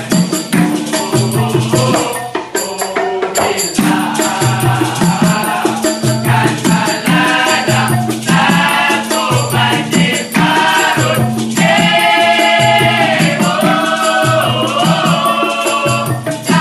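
Dikir barat performance: a male chorus singing together over steadily shaken maracas and hand claps, with a low beat about once a second. The singing thins briefly about two seconds in, then comes back fuller and louder in the second half.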